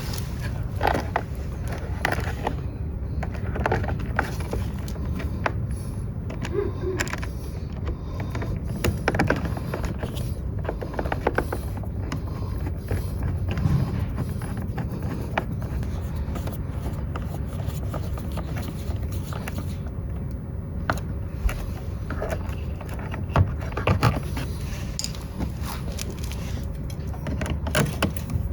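Scattered clicks, knocks and scrapes of hand work on a scooter's battery and body parts during a battery change, over a steady low rumble.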